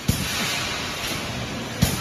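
BRC wire mesh welding machine for 5–12 mm bar running: a steady hiss with a heavy clunk about every 1.7 seconds, one just after the start and another near the end, as the machine cycles.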